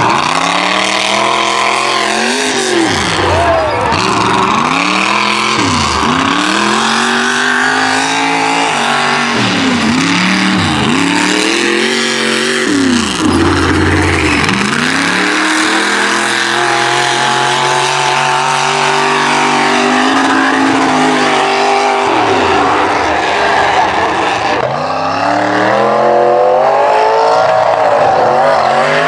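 Lifted mud truck's engine revving hard, its pitch repeatedly dropping and climbing back up as the throttle is worked, holding steadier for a while in the middle and climbing again near the end.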